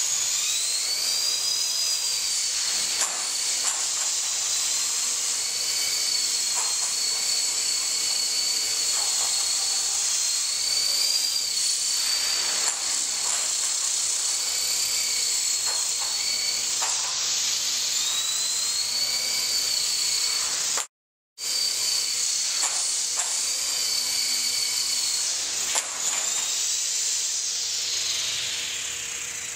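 Small RC helicopter hovering: its motor's high whine rises and dips in pitch with the throttle over the steady rush of the rotor blades. The sound cuts out for an instant about two-thirds of the way through.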